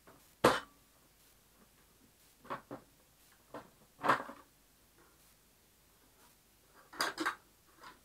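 Scattered sharp clicks and knocks of the plastic housing of an Elektrosila-2 vacuum cleaner being handled and fitted together during reassembly. The loudest, a single sharp click, comes about half a second in, more knocks follow, and there is a quick double knock near the end.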